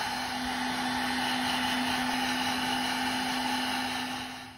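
Handheld hair dryer running steadily, a rush of air with a steady low hum under it, blowing on a small wet drone circuit board and motor to dry them. The sound fades out near the end.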